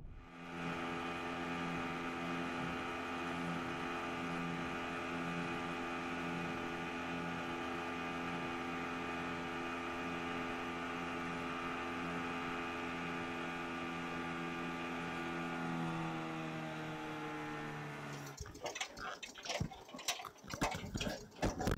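Outboard motor running steadily at speed, its pitch dropping as it throttles back about sixteen seconds in. After an abrupt break near eighteen seconds, irregular knocks and clatter as a gill net is hauled into the metal boat.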